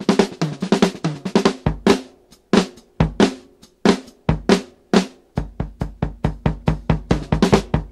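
Drum kit playing alone in a break of a 1972 Italian jazz-funk record: scattered snare and bass-drum strokes with short gaps. About five and a half seconds in, it settles into a fast even run of about five strokes a second.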